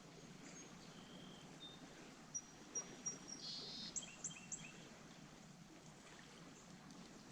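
Faint riverside background with a short burst of high-pitched bird chirps and calls, a handful of quick notes bunched together in the middle.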